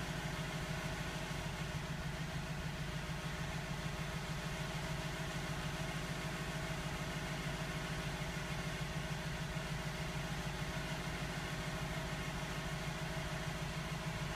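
A steady, unchanging low mechanical hum, like a motor or machine running, with no knocks or other events.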